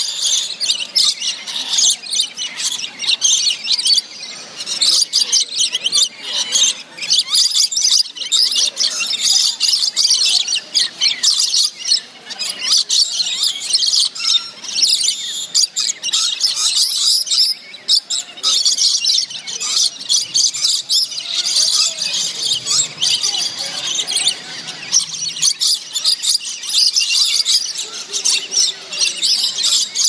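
Rainbow lorikeets screeching and chattering in a constant, rapid, shrill stream, the harsh calls of birds fighting.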